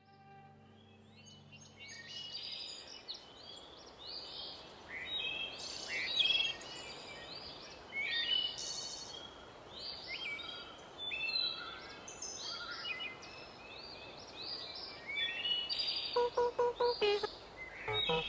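A chorus of songbirds chirping and trilling, fading in over the first few seconds. Near the end, music with a pulsing, repeating tone comes in under the birds.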